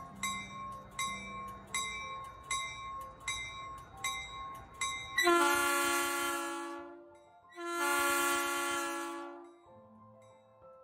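Metra commuter train's bell ringing at an even beat, about once every three-quarters of a second. About five seconds in, the bell gives way to two long blasts of the train's multi-tone air horn.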